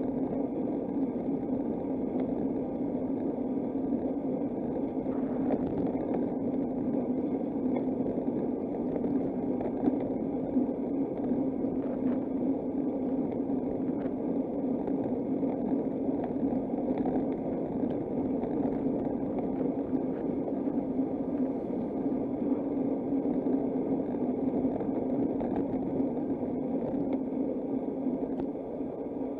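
Steady rushing noise of a bicycle ride, wind and tyre noise on the road, easing slightly near the end.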